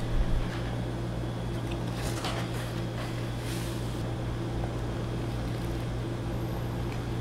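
A steady low hum, with a brief low thump just after the start and a few faint soft noises later on.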